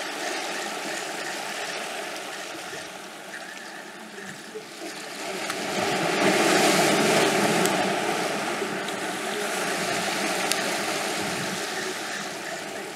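Sea waves washing against the rocks of a breakwater, a steady wash that swells to a louder surge about six seconds in and then eases off.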